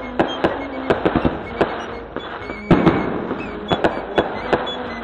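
Aerial fireworks going off: a quick, uneven string of sharp bangs and crackles, the loudest a little under three seconds in with a rumbling tail. Music plays underneath.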